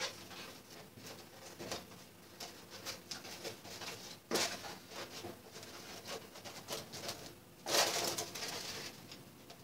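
Stiff paper cylinder being hand-stitched with needle and thread: small crackles and rustles of the card as it is handled and pierced, with two louder rustles about four seconds in and again near eight seconds.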